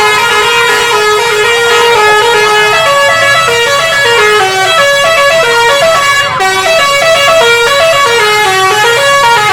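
Bus 'telolet' horn, a basuri-type multi-tone horn, playing a loud melody of quick stepped notes throughout.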